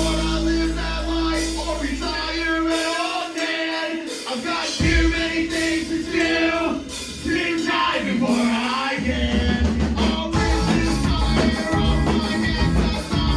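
Punk rock band playing live, with distorted guitars, drums and a shouted lead vocal. The bass and low end drop out briefly twice.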